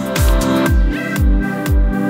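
Electronic dance music with a heavy kick drum on a steady beat of about two a second, with hi-hat-like ticks and sustained synth notes.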